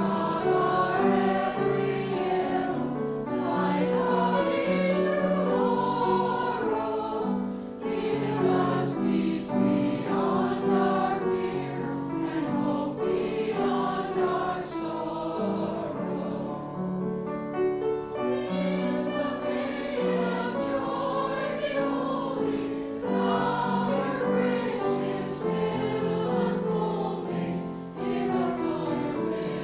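Church choir singing a hymn in held, sustained notes, phrase by phrase, with short breaks between lines.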